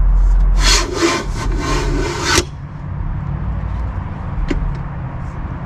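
Rooftop tent being forced open on the roof rack: a quick run of rough scraping strokes for about two seconds that stops abruptly, then a single sharp click a couple of seconds later.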